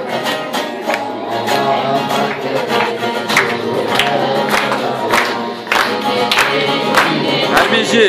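Bağlama (long-necked Turkish saz) played with a steady beat of sharp strokes, about two a second.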